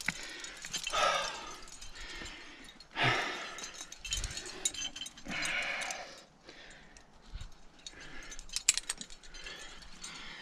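A climber breathing hard in loud, noisy breaths a couple of seconds apart while moving up rock, with the light clinking of carabiners and gear on his harness rack.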